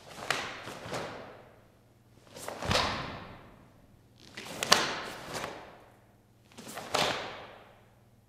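Karate gi snapping as blocks and punches are thrown in a kata: four movements about two seconds apart, each a rush of cloth with sharp cracks. A bare foot lands with a thud on the mat a little before three seconds in.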